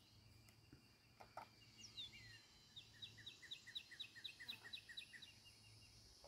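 Faint songbird singing: one downward-sliding note about two seconds in, then a quick series of about a dozen short, repeated two-part notes at roughly five a second that stops near the end. A steady, thin high tone runs underneath.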